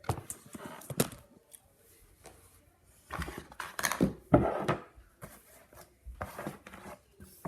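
Plastic building bricks being handled: sharp clicks followed by bursts of clattering and rustling as the small pieces are picked up and moved about.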